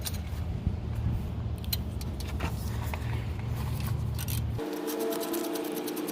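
Metal clinks of wrench, socket and bolts as the brake caliper bolts are worked free, over a low rumble. About four and a half seconds in, the sound changes abruptly to a steady whine with rapid, even ticking.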